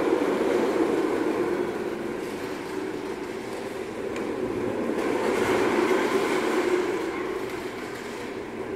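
Self-balancing hoverboard's wheels rolling over a tiled floor, a continuous rumble that swells and fades as it moves, loudest about halfway through.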